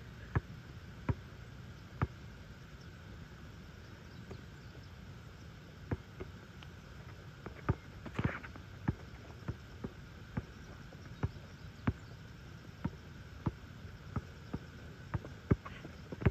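Basketball bouncing on an outdoor asphalt court: a few sharp bounces, a pause of a few seconds, then a steady run of dribbles about two a second.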